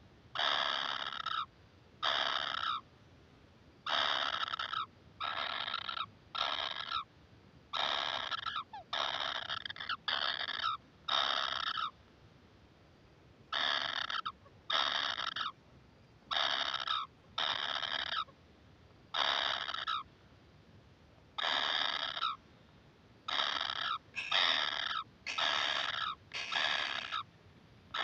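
Kingfisher nestlings giving harsh begging calls, each under a second long, about one a second with a few short pauses.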